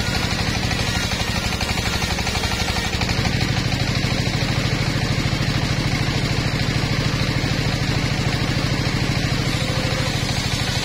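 Engine-driven mobile circular saw bench running steadily, its large blade spinning, with a steady engine drone that grows a little stronger about three seconds in.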